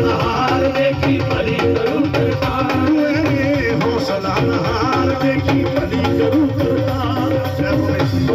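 Live Punjabi devotional song amplified through a PA system: a man sings in long, wavering, ornamented lines over keyboards and drums.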